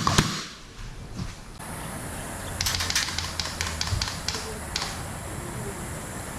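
A loud sharp click right at the start, then a quick irregular run of about a dozen sharp clicks and taps over two seconds, over a steady low hum.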